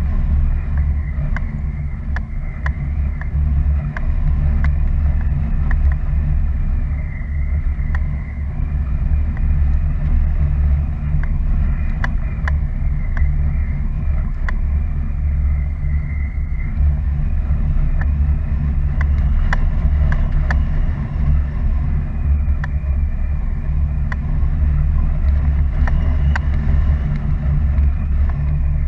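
Airflow buffeting an action camera's microphone during a paraglider flight: a steady low rumble with scattered light clicks.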